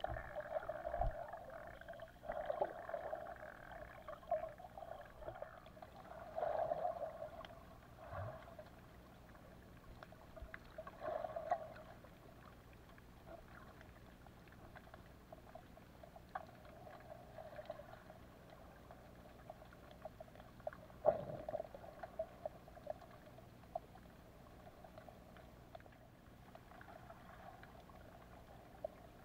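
Underwater ambience picked up by a camera held under the sea while snorkeling: a muffled, rushing water sound that swells several times in the first half, with scattered sharp clicks and crackles throughout, one sharper click about two-thirds of the way in.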